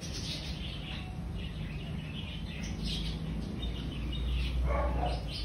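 Birds chirping in the background, short scattered calls over a low steady hum that grows louder near the end.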